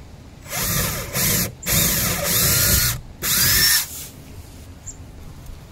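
Cordless drill running in four short bursts, its motor pitch rising and falling with each trigger pull, while mounting a diesel heater's fuel-line fitting to the van wall.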